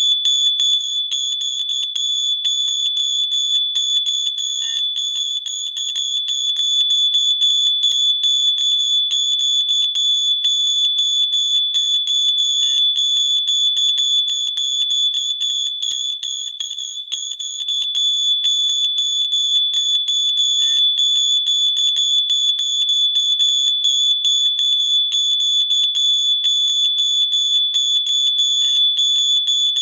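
Electronic fire alarm sounding continuously: one steady, high-pitched tone with a rapid flutter above it, without pause. It dips briefly in loudness a little past the middle.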